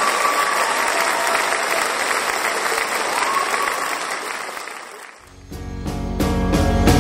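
A crowd applauding, with some cheering, fading out about five seconds in. Then recorded music with a steady beat starts and runs to the end.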